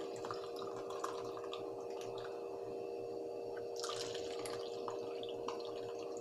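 Green agar jelly mixture with soaked sabja seeds poured from a bowl into small plastic bowls: liquid trickling and dripping, first into one bowl and again about four seconds in into the second, over a steady low hum.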